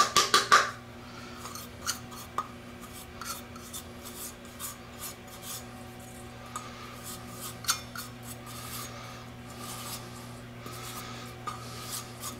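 Fingers tapping and scraping dry instant yeast out of a small stainless-steel measuring cup into a stainless-steel mixing bowl: a quick run of sharp taps at the start, then scattered light ticks and faint rubbing.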